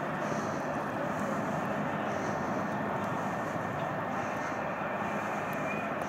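Steady engine drone at an even level, with no revving or breaks.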